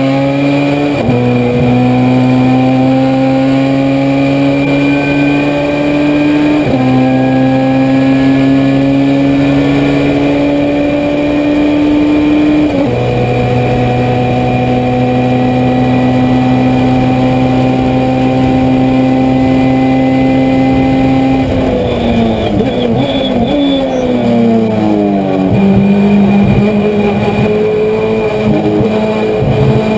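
Honda CRX race car's four-cylinder engine at full throttle, heard from inside the cockpit, climbing in pitch and dropping at upshifts about a second in, about seven seconds in and about thirteen seconds in, then holding nearly steady at high speed. Past twenty seconds it comes off the throttle and the pitch falls in steps through downshifts under braking, then it pulls hard again near the end.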